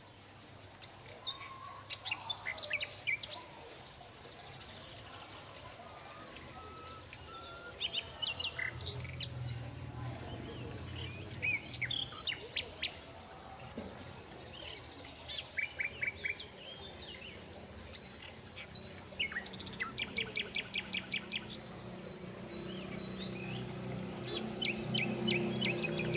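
Birds chirping and singing in short bursts every few seconds, one burst a quick, even run of repeated notes. A steady low background hum lies beneath and grows louder near the end.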